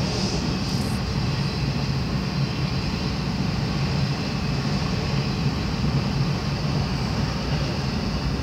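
A train rolling through a railroad crossing, a steady rumble heard from inside a car waiting at the crossing.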